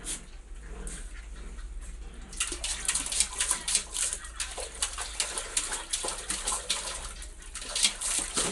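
Husky puppy splashing in a steel pot of water, with rapid, irregular splashing starting about two seconds in.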